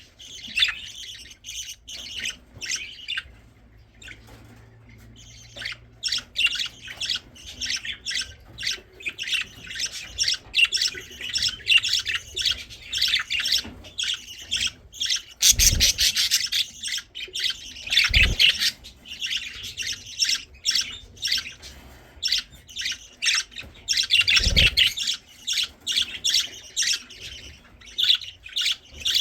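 Baby budgerigars begging for food: rapid, repeated high squawking calls with a brief lull near the start. Three dull thumps sound in the second half.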